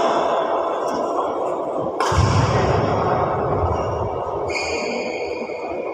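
Echoing noise of a large indoor sports hall. About two seconds in, a sudden loud thump is followed by a low rumble. Later comes a brief high squeal.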